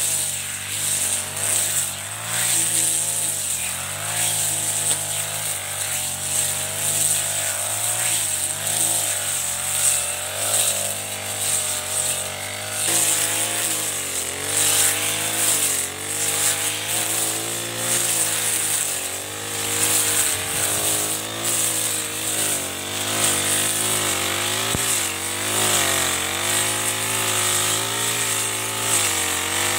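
Four-stroke backpack brush cutter (a Chinese Honda-copy engine) running at high speed while cutting tall grass. Its engine pitch keeps dipping and recovering as the cutting head bites into the grass, over a steady hiss of grass being slashed.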